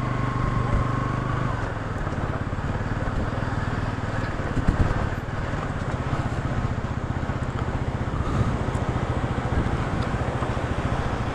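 Motorcycle engine running at low revs as the bike rolls over a rough, stony dirt track, under a steady rush of wind and road noise. There is a brief knock a little under five seconds in.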